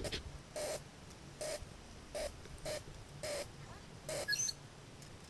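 A 5-inch gauge coal-fired Simplex live-steam locomotive chuffing slowly: about six exhaust beats, slightly uneven in spacing. A brief high squeak comes about four seconds in.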